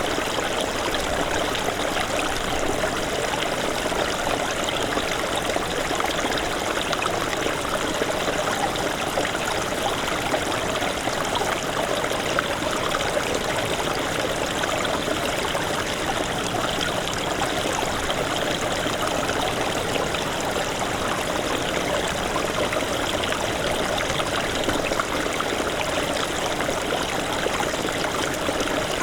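Small snowmelt stream running over stones: a steady, even babble of rushing and trickling water.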